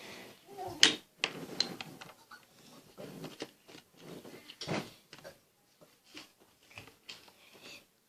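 Scattered clicks and knocks of small objects being handled, the sharpest about a second in and another near the five-second mark.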